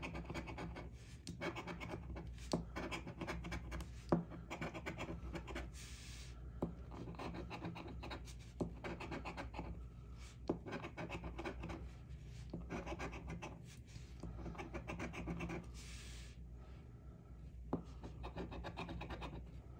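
A coin-style scratcher scraping the latex coating off a paper scratch-off lottery ticket in runs of quick, short strokes, with a few sharp clicks along the way.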